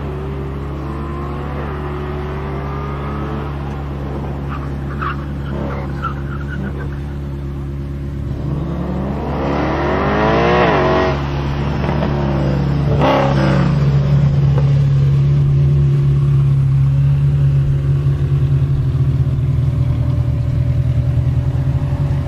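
Mercedes-Benz C63 AMG's 6.2-litre V8 running: a steady engine note, revved up and down sharply about halfway through and once more soon after. It then settles into a loud, steady idle heard close to the quad exhausts.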